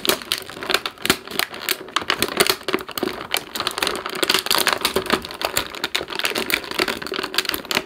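Thin clear plastic packaging crackling and crinkling in rapid, irregular clicks as an action figure is pried out of its tight-gripping plastic housing.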